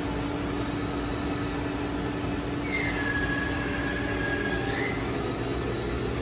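Romi C420 CNC lathe running under power with a steady hum. In the middle, a high motor whine comes in, dips in pitch and holds for about two seconds, then rises and stops.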